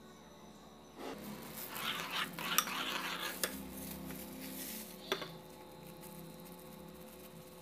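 A spoon stirring a wet mixture in a bowl, scraping and clinking against its side, with a few sharp knocks. The stirring starts about a second in and dies down after about five seconds.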